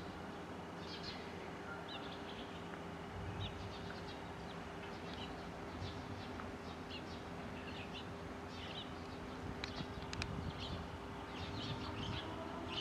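Small birds chirping again and again over a steady electrical hum. Near the end, the whine of a Shin-Keisei 8800 series electric train's traction motors begins to rise in pitch as it pulls away.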